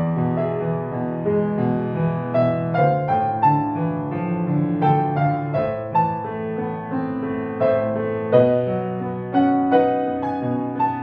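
Solo grand piano played with both hands: a right-hand melody over flowing left-hand chords, each note struck and left to ring and fade.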